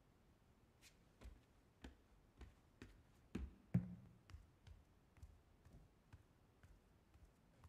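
Faint footsteps walking away, about two steps a second, with a couple of heavier steps about three and a half seconds in.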